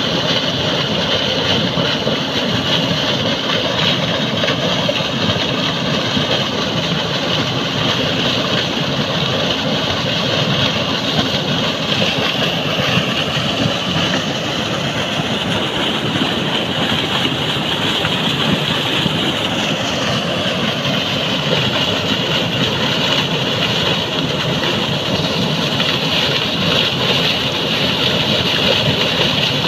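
Heavy jet of water gushing from a water pump's outlet pipe and splashing into a pond, with the pump's engine running steadily underneath.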